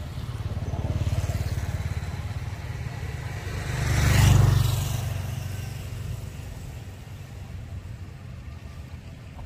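A motor vehicle passing by: engine rumble that grows louder, peaks about four seconds in, then fades away.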